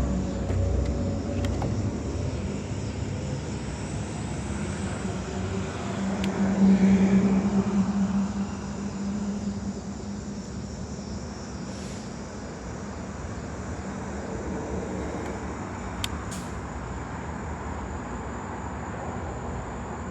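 Steady vehicle engine hum that swells for a couple of seconds about a third of the way in, then settles, with a few faint clicks.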